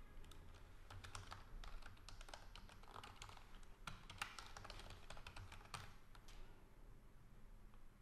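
Faint computer-keyboard typing: quick, irregular key clicks as an email address is entered, thinning out about six seconds in.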